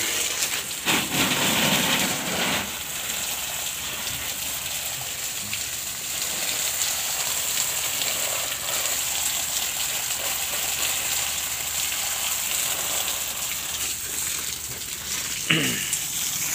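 Water spraying from a garden hose onto soil and plants: a steady hiss, louder for a second or two near the start.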